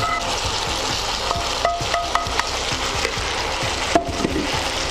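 Chicken and masala sizzling steadily in a nonstick kadai, with small knocks and scrapes as grated fried coconut is pushed in from a frying pan with a wooden spatula.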